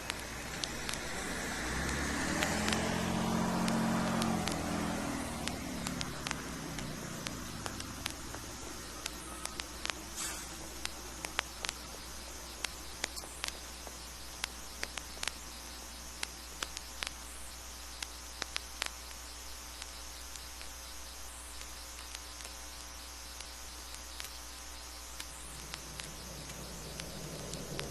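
A vehicle passes by, its sound swelling and then falling in pitch as it goes, leaving a quieter steady drone. Many sharp clicks run through it, and a new sound swells near the end.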